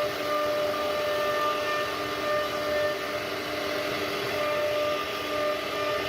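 CNC router spindle running with a steady high whine while its bit cuts wood, over a constant hiss of cutting noise; the whine strengthens and fades slightly every second or two.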